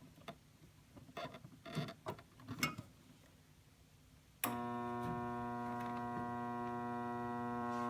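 A few faint clicks and rustles, then about four and a half seconds in the furnace's seized inducer motor is energised and buzzes steadily without spinning. The locked rotor draws about 5 amps against a 2.63 amp full-load rating.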